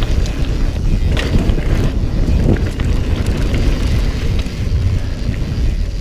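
Mountain bike rolling fast down a dirt singletrack, with wind noise heavy on the rider's camera microphone, tyre noise and occasional clicks and rattles from the bike over bumps.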